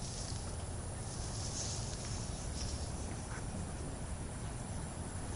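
Steady outdoor background noise through a webcam microphone: a low rumble under a hiss, with brief swells of higher hiss now and then.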